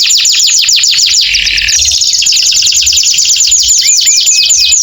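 Male domestic canary singing a fast trill of rapidly repeated downward-sweeping notes, about ten a second, with a brief buzzy passage about a second in.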